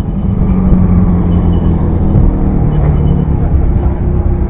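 An engine running with a steady low rumble. Its pitch shifts slightly a little past two seconds in.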